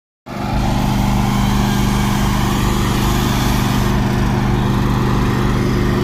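Bobcat S205 skid-steer loader's diesel engine running steadily, a constant low hum with even pitch.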